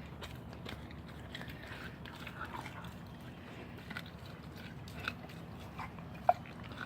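German shepherd puppy chewing a raw turkey neck: irregular sharp cracks and crunches of bone, the loudest about six seconds in.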